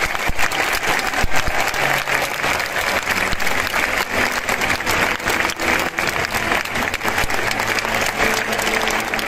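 Crowd of football supporters applauding: many hands clapping steadily in the stands.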